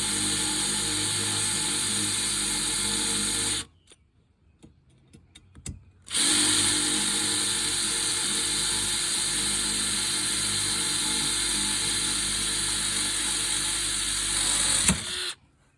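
Cordless impact drill with a multi-purpose bit drilling into steel Kindorf strut channel, its motor running at a steady pitch. It stops about four seconds in, starts again about two seconds later, and runs steadily until it cuts off near the end.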